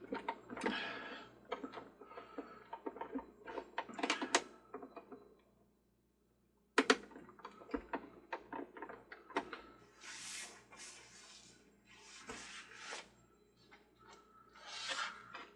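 Small screws being driven into a plastic toy ferris wheel's star with a hand screwdriver: clicks and knocks of handling, a sharp click, then several scraping bursts about a second long as screws turn into the plastic. The sound drops out completely for about a second near the middle.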